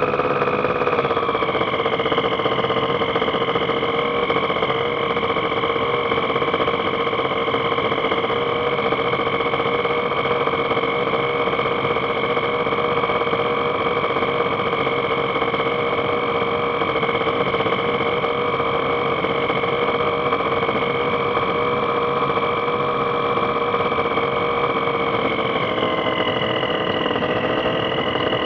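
Engine of the TrueLite ultralight aircraft running steadily. Its pitch drops slightly about a second in and again near the end.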